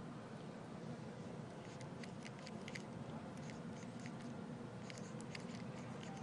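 Paint marker scratching on the coated steel of a large gas pipe as letters are written, a quick irregular series of short strokes starting about two seconds in, over a steady low hum.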